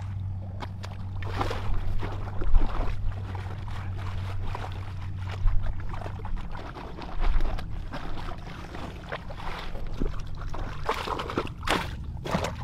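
Water sloshing and splashing as a woven basket of fish is dipped and worked by hand in a shallow ditch, with irregular splashes throughout.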